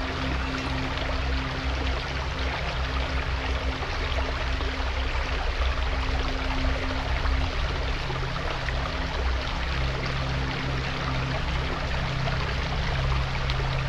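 Creek water running and babbling steadily, with soft background music of low, sustained tones underneath.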